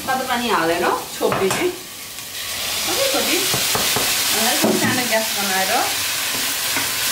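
Kinema curry frying and sizzling in a pan, with a steady hissing that grows stronger a few seconds in. A voice is heard at moments over it.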